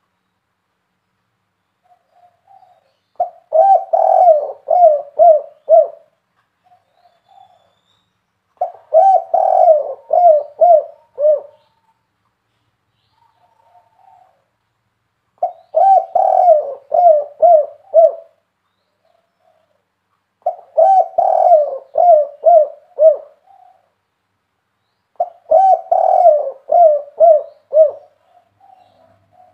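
Spotted dove cooing: five phrases a few seconds apart, each a quick run of five or six coo notes, the big-voiced 'kuk 3' song type that dove keepers prize, with a few soft single notes between phrases.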